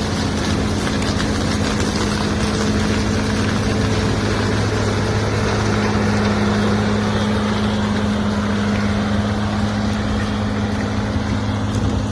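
Combine harvester running steadily through a corn harvest, a constant low engine hum under a dense mechanical roar.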